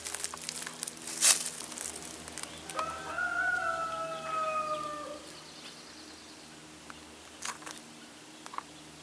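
A rooster crowing once, starting about three seconds in: a single long call of about two and a half seconds that holds its pitch and sags a little toward the end. Before it, footsteps crunch on dry fallen leaves.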